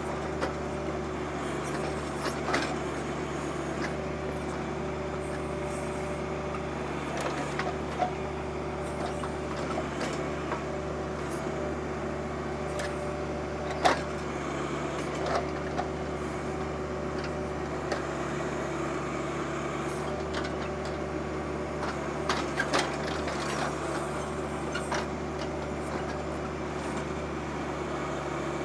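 Compact diesel tractors running steadily while working backhoes on a stump, with scattered sharp knocks and clanks; the loudest knock comes about fourteen seconds in.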